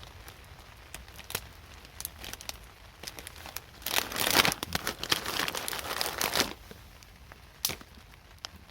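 Crinkling and rustling of something being handled, with scattered sharp clicks; the densest, loudest stretch runs from about four to six and a half seconds in, and a single sharp click comes near the end.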